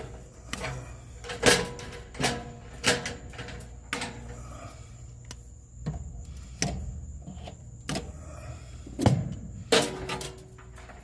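Wiring harness being pulled out of a front-load dryer: irregular clicks, knocks and rattles of wires and plastic connectors against the sheet-metal cabinet, the sharpest knocks about a second and a half in and again about nine seconds in.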